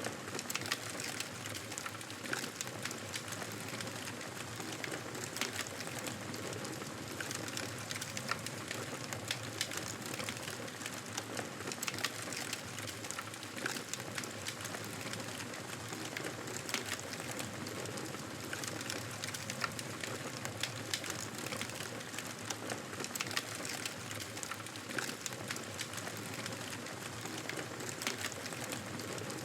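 Wood campfire crackling steadily: frequent small snaps and pops over a soft hiss.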